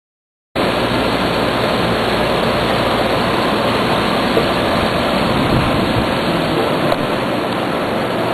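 Loud, steady rushing noise of moving air, starting abruptly about half a second in and holding even.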